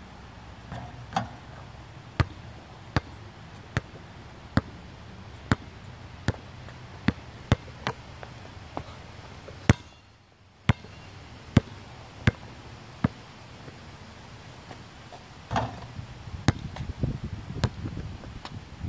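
Basketball being dribbled on pavement: a steady run of sharp bounces, a little more than one a second. The bounces break off in a short silent gap about halfway through, and the sound turns into busier, less regular knocks and scuffs near the end.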